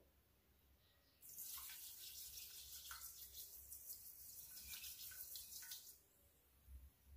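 Granulated sugar poured in a steady stream into a stainless-steel saucepan of milk. A hissing pour starts about a second in and stops after about five seconds.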